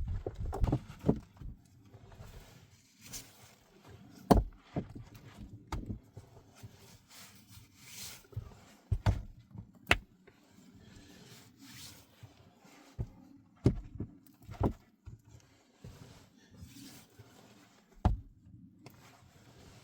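Irregular knocks and thumps of handling, about a dozen, with rustling between them.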